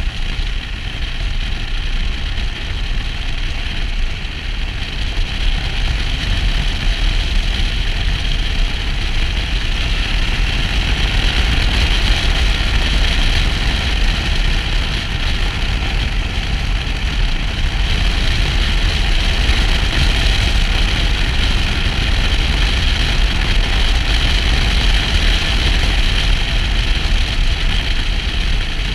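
Motorcycle riding at road speed: a steady rush of wind on the microphone with the engine running underneath, getting a little louder about ten seconds in as the bike speeds up.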